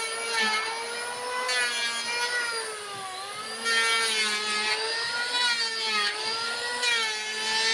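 An electric power tool's motor running with a steady whine, its pitch sagging a little now and then as it takes load.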